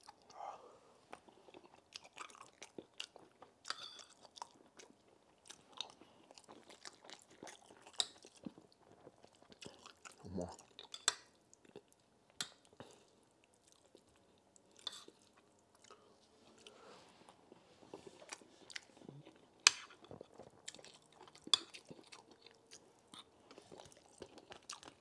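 Close-miked chewing and mouth sounds of a man eating rice and banga stew, with a metal spoon clinking and scraping on the plate now and then. Short, irregular clicks run throughout, with one sharp clink about two-thirds of the way in.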